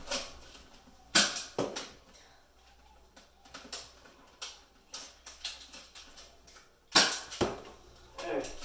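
Scattered sharp clicks and knocks from Nerf blasters firing and foam darts striking around the room, about a dozen at irregular intervals, the loudest about a second in and again near the end.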